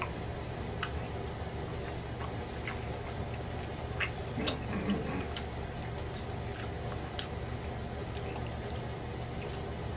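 Quiet eating sounds: scattered small clicks and wet smacks of chewing and of fingers pulling apart a gravy-smothered pork chop, over a steady low hum.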